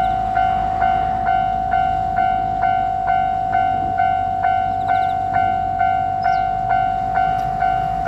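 Japanese railway level-crossing warning bell ringing its repeating clang, about two strokes a second, each stroke fading before the next.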